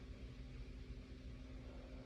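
Quiet room tone: a low, steady hum with a faint steady tone running under it.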